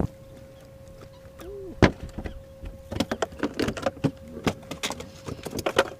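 Small electric motor, typical of a boat's trolling motor, whining steadily on one tone. A sharp knock comes about two seconds in, then a run of quick irregular clicks and rattles through the second half.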